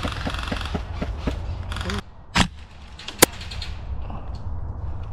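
Footsteps on wood chips, about three a second, for the first two seconds. Then a single airsoft rifle shot, followed under a second later by a sharp crack.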